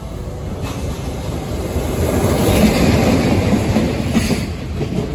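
Freight train passing close by: an EF66 electric locomotive hauling Koki container wagons, wheels running on the rails in a loud rumble that builds over the first two seconds and then holds, with a few sharp knocks near the end.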